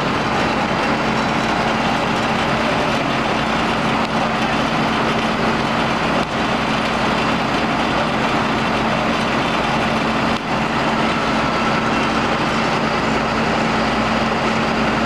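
John Deere 9600 combine running steadily under harvest, a constant dense mechanical din with a steady low hum.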